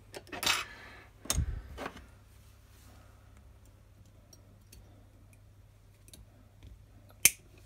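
Round-nose pliers clicking and scraping on a small wire spring held in a bench vise as its hook is bent, with a duller knock about a second and a half in and one sharp click near the end.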